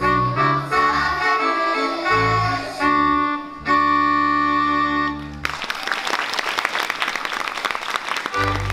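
Folk dance music with a steady bass and chords ends on a long held chord, and about five and a half seconds in the audience breaks into applause. The music starts up again near the end.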